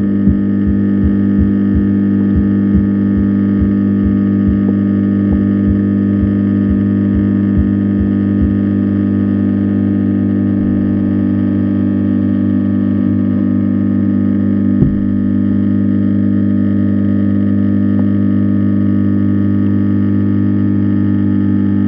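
Loud, steady electrical hum with a stack of even overtones, picked up by a camera underwater. Sharp clicks come about twice a second through the first eight seconds, and there is a single louder knock about fifteen seconds in.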